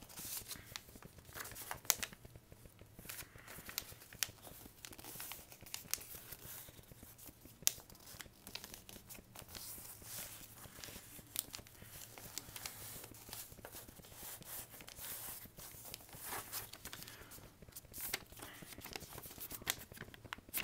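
A sheet of paper being folded and creased by hand: irregular rustling and crinkling, with sharp little crackles as the folds are pressed flat.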